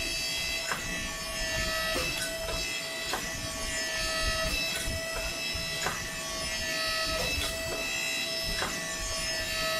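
Homemade hydraulic forging press running with a steady pump whine as its ram squeezes a hot steel billet flat, with irregular sharp clicks about once a second.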